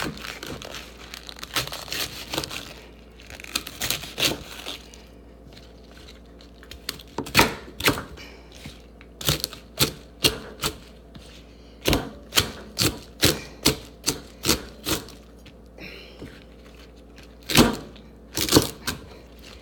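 Knife chopping leafy greens on a cutting board: a run of sharp, irregular knocks of the blade striking the board, coming in quick clusters. In the first few seconds softer rustling and tearing of the leaves being handled.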